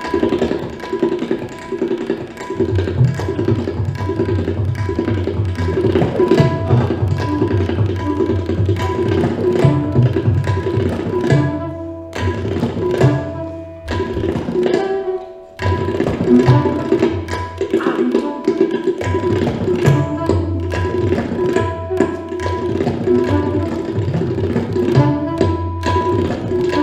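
Tabla played in a fast, dense passage: rapid strokes on the right-hand drum, low bass strokes from the left-hand drum, over a steady drone. The playing thins out about twelve seconds in and picks up again around fifteen seconds.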